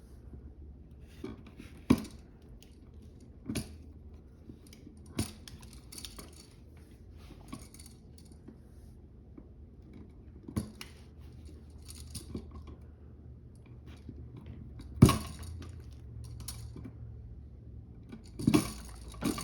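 Scattered sharp clicks and light metallic taps from hand tools and copper wire being handled while wiring a receptacle, about a dozen spread irregularly, with a faint low hum underneath.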